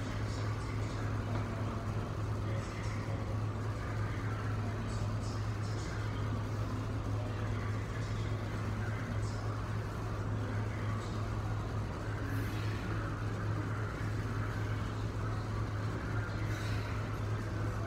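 Steady low hum and background room noise of a gym, with a few faint light ticks scattered through.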